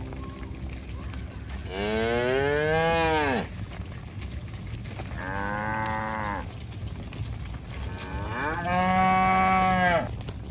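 Cattle mooing three times: a long call about two seconds in, a shorter one in the middle, and another long one near the end.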